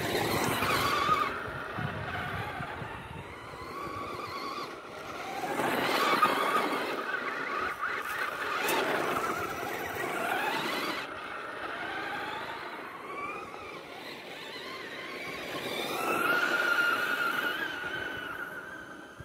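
Traxxas Slash electric RC truck driving, its motor whining up and down in pitch with the throttle over a rushing noise, with louder surges near the start, about a third of the way in and near the end.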